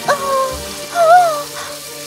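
A young woman's voice giving two short, exasperated huffs, the second louder and wavering, over soft background music.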